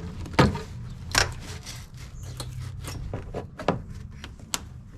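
Scattered sharp clicks and knocks of hands and a tool working a stuck coolant hose off an engine's thermostat housing, the two loudest knocks in the first second and a half.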